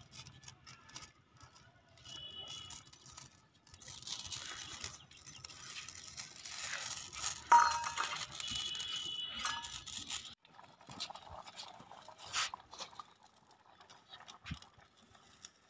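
Potato curry simmering in a kadhai over a wood-fired clay chulha: a soft, uneven patter and crackle of bubbling and burning wood that comes and goes.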